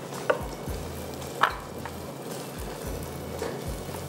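Chicken tikka chunks sautéing in oil in a nonstick frying pan, sizzling steadily as they are stirred with a spatula, with two brief scrapes of the spatula on the pan.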